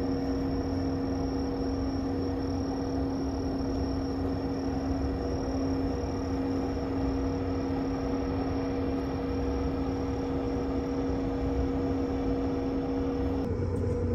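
Boat engine running steadily: a constant drone with a steady hum, dipping slightly in pitch near the end.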